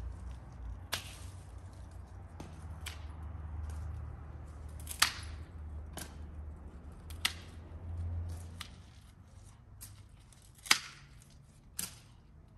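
Hand pruning shears snipping through thin garden branches: sharp single snaps, one every second or two, the loudest about five seconds in and again near the end. A low rumble runs under the first two thirds and then fades.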